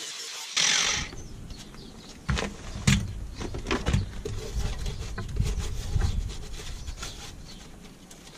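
A steady hiss ends with a short, loud rasp about half a second in. Then come irregular knocks and clunks of hands and tools working on the car's bare steel bodywork, over a low, uneven rumble.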